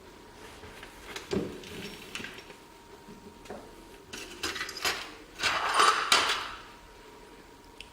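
Knocks, clicks and a scraping clatter of hard objects being handled or slid, with a knock about a second and a half in and the loudest scraping clatter just before the six-second mark.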